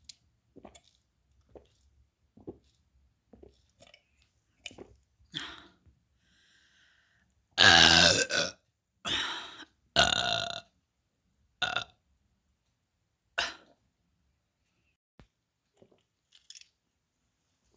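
A person burping through a Snapchat voice filter: one long, loud burp near the middle, then four shorter burps over the next few seconds. Small clicks and mouth noises come before it.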